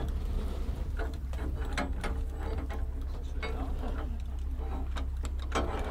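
Sail cloth shifting and a ship's rigging clicking and rattling irregularly, over a steady low rumble.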